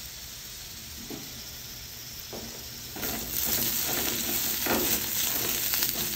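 Fingerling potatoes and onions sizzling in oil on a metal cookie sheet over a hot grill. About three seconds in the sizzle gets louder, and a spatula scrapes and turns the potatoes on the pan several times.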